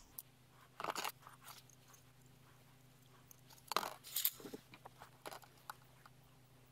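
A circuit board being handled and turned over on a plastic storage box: a few short clattering knocks about a second in and again around four seconds in, with lighter clicks between, over a faint steady low hum.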